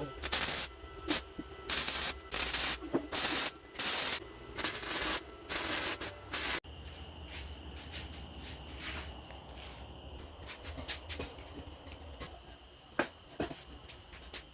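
Hand sanding, about nine short rasping strokes of sandpaper in a back-and-forth rhythm. They stop abruptly about two-thirds in, leaving a quieter steady background with a few faint clicks.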